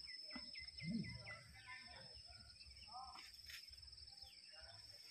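Faint outdoor evening ambience: a steady high insect drone, with a bird giving a quick run of short falling chirps in the first second or so. Scattered faint voices sit low underneath.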